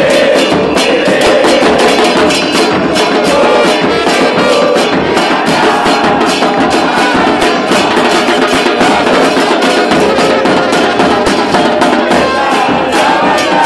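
A football supporters' band playing a chant: large bass drums (bombos) beat a steady rhythm under trumpets and trombones playing the tune, with the crowd singing along.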